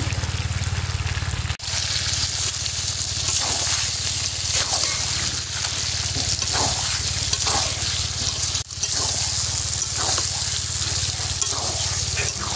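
Chicken skin and spiced masala frying in a kadai, a steady sizzle as it is cooked down and stirred, over a steady low hum. The sound cuts out briefly twice, about a second and a half in and again near nine seconds.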